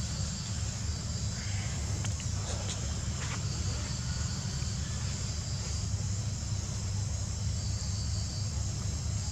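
Steady insect chorus, a continuous high buzz, over a steady low rumble.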